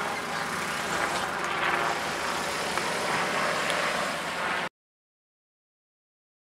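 Small hatchback car, a Vauxhall Corsa, pulling away and driving off across a car park, engine and tyre noise steady. It cuts off abruptly to dead silence about two-thirds of the way through.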